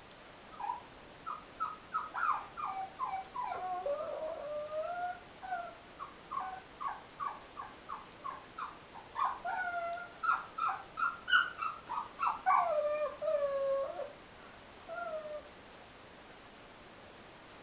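Small dog yapping and howling in a long run of short high calls, broken by a few longer, wavering cries that fall in pitch, and stopping about fifteen seconds in.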